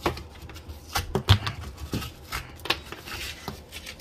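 Scattered clicks, knocks and rubbing as a hand grips and wiggles a white PVC drain pipe among crumbling subfloor debris. The loudest knock comes a little over a second in.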